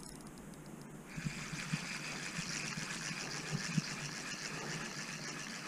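Fishing reel being cranked steadily as a fish is reeled in: an even whirring hiss that starts about a second in, with a few light knocks of handling.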